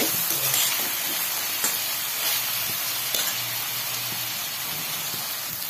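Chopped onion, peanuts and green chillies sizzling steadily in hot oil in a steel kadhai, with a few light clicks and scrapes of a perforated metal spoon stirring. The onion is frying down to the translucent stage.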